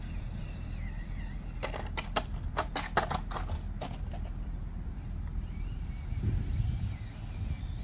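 A quick, irregular run of about ten clicks and knocks, from about one and a half to four seconds in: a 1:18 scale RC mini crawler's tyres and plastic body clattering against rock as it climbs. A steady low rumble lies underneath.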